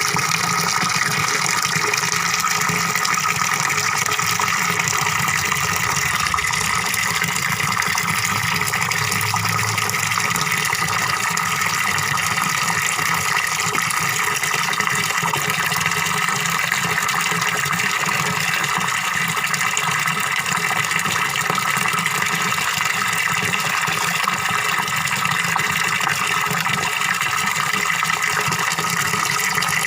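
Water from a small pond waterfall splashing and gurgling into a fish pond, steady and unbroken.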